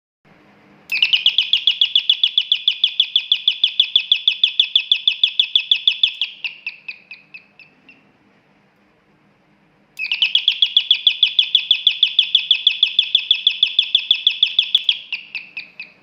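Electronic alarm siren sounding in two bursts of rapid, high, falling chirps, about eight a second, each burst lasting about five seconds with a pause between. This is the door alarm circuit going off when it is triggered.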